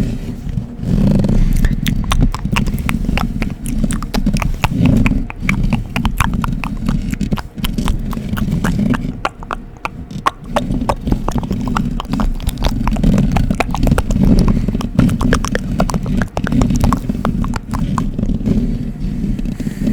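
Close-miked ASMR mouth sounds and scratching: quick, irregular wet clicks over a dense, low rubbing noise, with short pauses.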